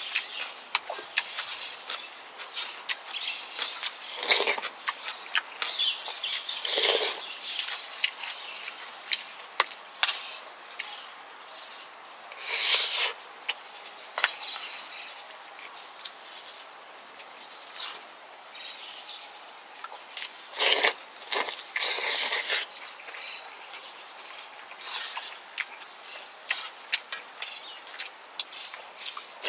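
Close-miked eating sounds of kimchi stew and rice: many small wet clicks of chewing and lip smacking, with several louder, short, noisy bursts spread through.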